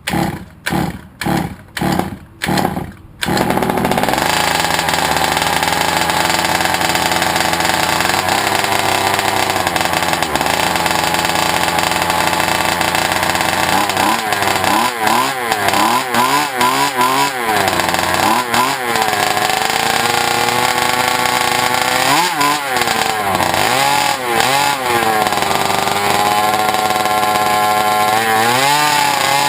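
The 23cc two-stroke engine of an HPI Baja 5B RC buggy is cranked over in about six short bursts, catches about three seconds in, and keeps running. In the second half its pitch rises and falls repeatedly as the throttle is blipped.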